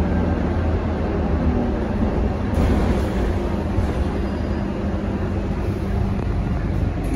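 Scania K230UB single-deck bus heard from inside the cabin: a steady low engine drone and road rumble as it runs. A steady hum in the drone drops away about six seconds in.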